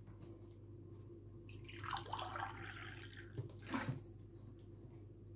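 Faint splashing of water lasting about a second and a half, then a brief second splash, over a low steady hum.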